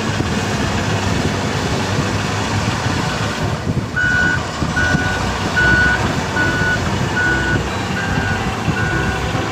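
Truck reversing alarm beeping steadily, about once every 0.8 seconds, starting about four seconds in, over the continuous rumble of the vehicle's engine running.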